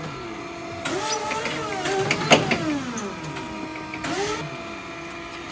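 Steady motor hum, with a single sharp clack a little over two seconds in.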